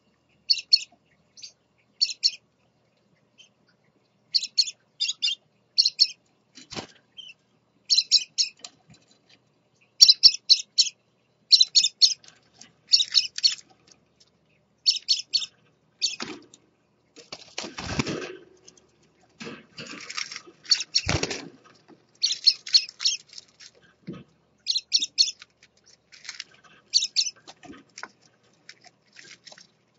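Scarlet-chested parakeets chirping in short clusters of rapid, high twitters that recur throughout. A couple of louder, noisier fluttering bursts of wing flapping come about two-thirds of the way through.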